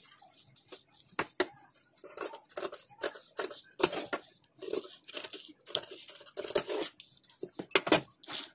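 Large tailor's shears snipping through doubled cotton cloth: a run of short, crisp cuts, about two or three a second, some louder than others.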